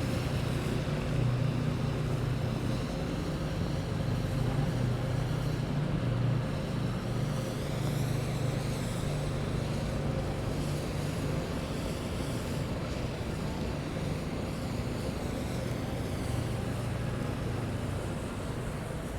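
City street traffic noise: a steady low engine hum from nearby vehicles over a constant wash of street sound.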